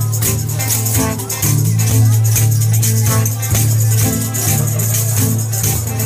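Live acoustic music: a large frame drum beaten in a steady rhythm, its jingles rattling, over strummed acoustic guitar.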